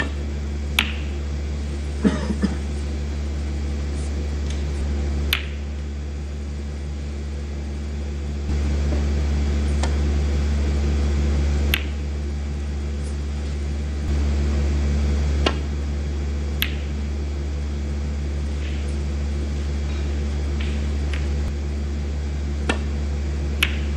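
Snooker balls clicking: the cue tip striking the cue ball and balls knocking together, about eight sharp single clicks several seconds apart, over a steady low hum.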